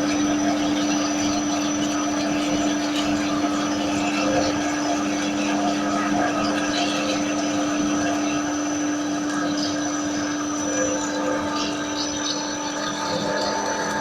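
16K20 screw-cutting lathe, converted to CNC with stepper motors, running with a steady mechanical hum and whine made of several held tones. About eleven seconds in, a further higher tone joins.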